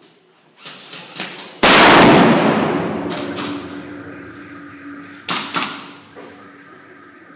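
An airsoft stun grenade going off about one and a half seconds in: a very loud bang whose noise trails away over the next few seconds, after a few light clicks. A little past five seconds in come two sharp cracks close together.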